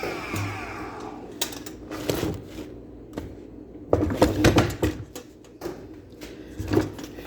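A Hoover carpet cleaner's motor spinning down after switch-off, its whine falling in pitch and dying out about a second in. Then a run of irregular knocks and clatters as the machine is handled, busiest around the middle.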